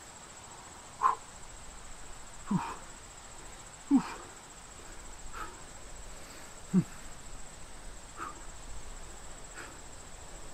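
A man's short, forceful exhalations, one with each push-up, about one every second and a half, seven in all.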